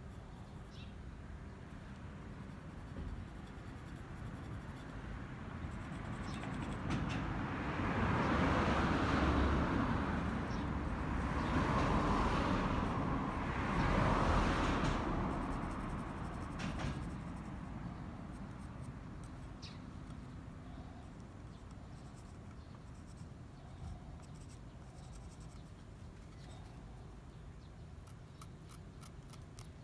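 Pencil scratching on a carved wooden bucksaw arm as lines are marked out on it. A broad rushing noise swells in and fades away through the middle.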